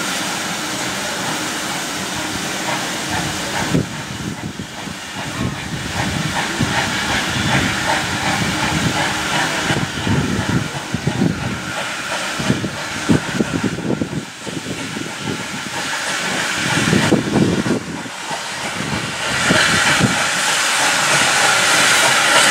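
Steam locomotive working: a steady hiss of steam with a run of irregular low beats through the middle. The hiss grows louder towards the end.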